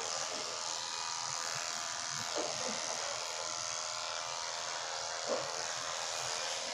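Corded electric dog-grooming clipper buzzing steadily as it is run through a dog's thick fur.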